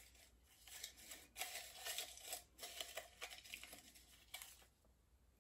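Small paper cards rustling and crinkling as a hand rummages through them inside a ceramic mug: faint and intermittent, with a few light ticks, stopping about four seconds in.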